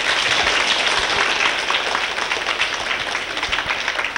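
Large audience of schoolchildren applauding together, a dense, even clapping that begins to thin out near the end.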